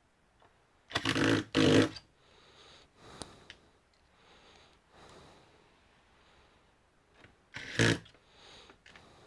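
Handling noises from working on a computer's plastic casing: two short scraping, rubbing bursts about a second in and another near the end, with a person's faint, regular breathing between them.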